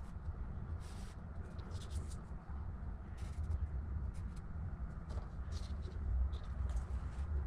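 A marker scratching in short strokes along the edge of a paper template on a steel plate, over a steady low rumble.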